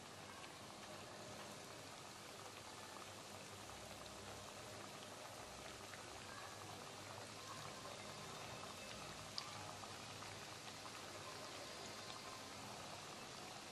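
Breadcrumb-coated fish pieces deep-frying in hot oil: a faint, steady sizzle and crackle of bubbling oil. A single sharp click comes about nine seconds in.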